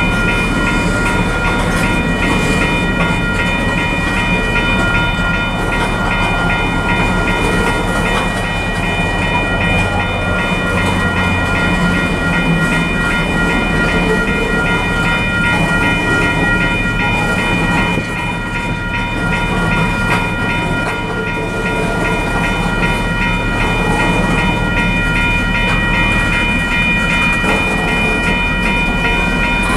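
Freight train's covered hopper cars rolling past close by: steady wheel-on-rail rumble and clatter, with steady high-pitched squealing tones running through it.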